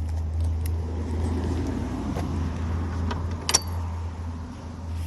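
A car passing on the street, swelling then fading, with light metallic jingling and a sharp click about three and a half seconds in.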